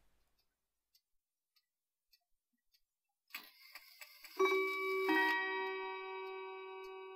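Near silence at first, then a short whirring rustle and two bell-like chime strikes about two-thirds of a second apart, ringing on and slowly fading.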